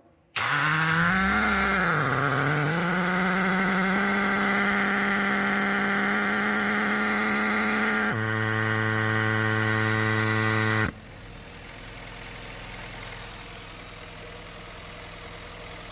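Honda Fit's electronic throttle body, switched on with the ignition, giving a loud buzzing whine: the pitch wavers for the first few seconds, then holds steady, drops to a lower tone and cuts off suddenly, leaving the engine idling more quietly. The noise comes from inside the throttle body, where the mechanic suspects its damaged drive gear, with throttle-actuator fault codes P2101 and P2110 logged.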